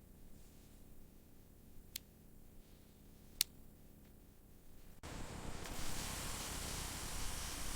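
Two sharp clicks over faint room tone, then about five seconds in an abrupt switch to a steady hiss.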